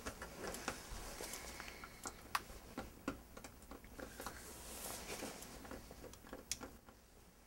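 Quiet rustling of bedclothes with irregular small clicks and taps, growing fainter toward the end.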